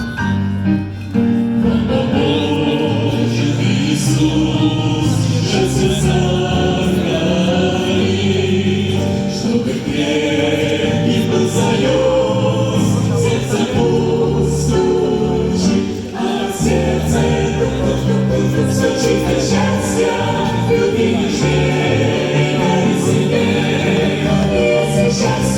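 Russian pop song, with sung or choir-like vocals over a bass line and a steady drum beat. The music dips briefly about two-thirds of the way through.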